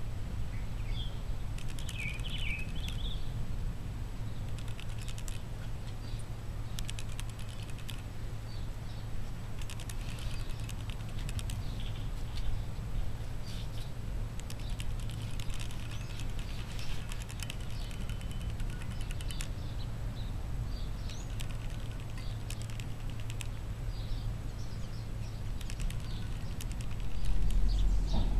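Cat crunching dry kibble from a bowl: irregular bursts of small rapid clicks, over a steady low hum, with a few faint chirps.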